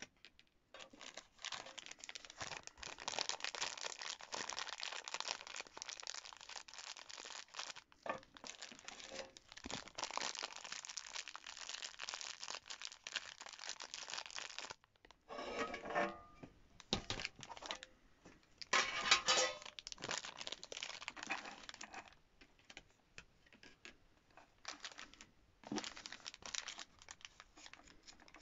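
Clear plastic zip-lock bags of flossy clay crinkling and crackling as they are handled and squeezed, with two louder crackling bursts past the middle and sparser rustles near the end.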